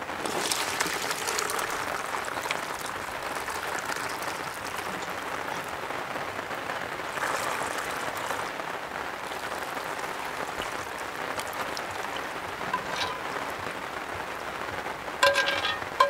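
Braising sauce poured from a cast-iron Dutch oven through a plastic sieve into a bowl: a steady splashing trickle. A few metallic clinks come near the end as the pot is tipped.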